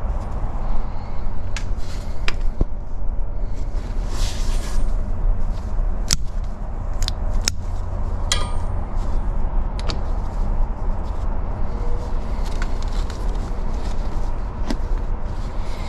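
Hand tools being handled at an HVAC unit's service valve: scattered sharp metallic clicks and taps, with a short hiss about four seconds in, over a steady low rumble.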